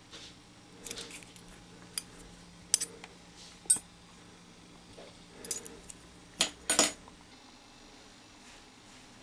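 Small metal objects clinking and clicking as they are handled: a handful of sharp, irregular clicks, with the loudest few close together about two-thirds of the way through.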